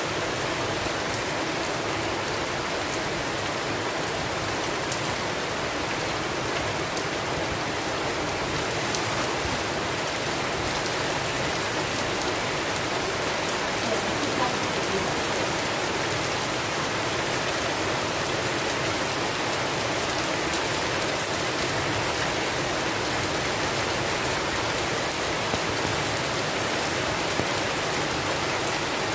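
Steady heavy rain falling on a surface, an even hiss with scattered individual drops audible.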